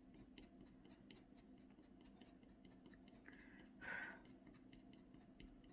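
Faint, quick scratches of a scratchboard tool cutting short strokes into a clay-coated scratchboard, many small ticks a second. A brief soft hiss comes about four seconds in.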